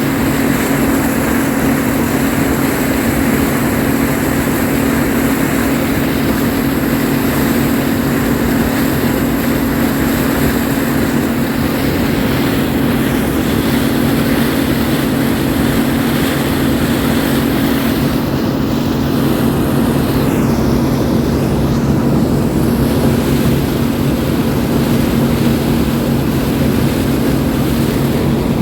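Farm harvesting machinery's engine running steadily under load, a loud, even drone at constant pitch.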